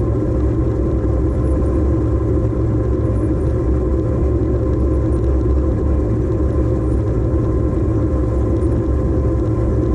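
A farm machine's diesel engine running steadily under load, a loud low rumble with a faint even hum above it.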